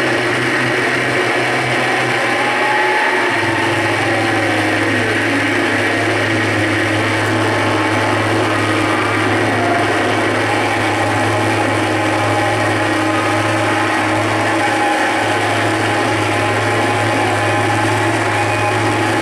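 Live harsh-noise electronics from a tabletop rig of effects pedals and small noise boxes patched together with cables: a dense, steady wall of grinding noise. A low hum comes in about three seconds in and holds, while a few wavering tones glide up and down in the first few seconds.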